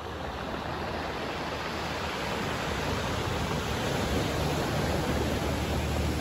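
Surf breaking and washing over a pebble beach, a steady rushing noise, with a low hum that builds near the end.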